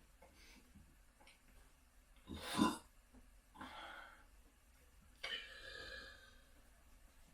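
A single burp about two and a half seconds in, followed by two shorter, breathy exhales.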